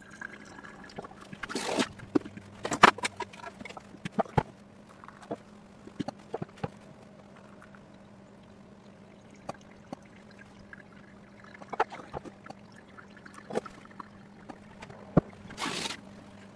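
Water poured from a gooseneck kettle onto coffee grounds in a paper-lined V60 dripper, trickling, with many scattered sharp clicks and knocks over a steady low hum.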